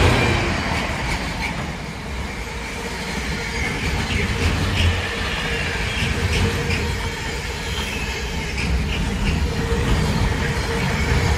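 Container freight train's wagons passing at speed: a steady rumble of wheels on the rails, with a faint high squeal from the wheels and sharp clicks every second or two.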